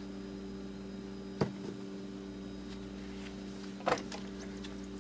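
Steady low hum, with two short knocks from the LCD screen's metal-framed layers being handled and wiped on the bench: one about a second and a half in and one near the end.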